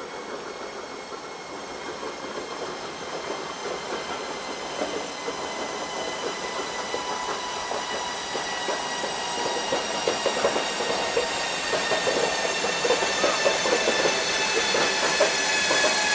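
Passenger train's wheels rolling slowly over points, with a steady high-pitched squeal of several tones that sink slowly in pitch and a patter of clicks over the rail joints, growing louder as the train comes closer.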